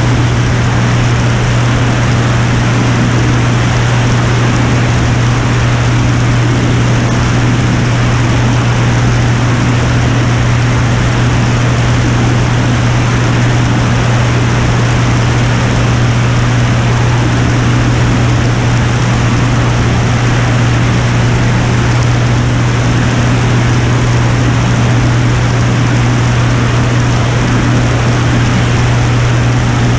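Piper Turbo Saratoga's turbocharged six-cylinder engine and propeller droning steadily in flight, a constant low hum under a heavy rush of wind noise on the outside-mounted camera.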